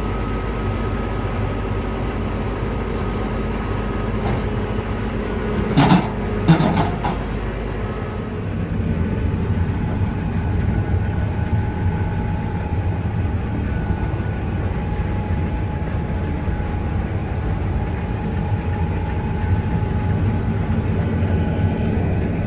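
Heavy diesel engine of farm machinery running steadily, with two sharp knocks about six seconds in; the engine sound changes character about eight seconds in.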